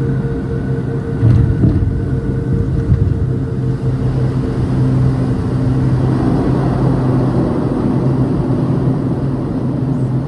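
Cabin noise of a Swearingen Metroliner's Garrett TPE331 turboprops during the landing roll: a loud, steady drone with a low hum. A few thumps come between about one and three seconds in, and from about six seconds in a rushing noise swells louder.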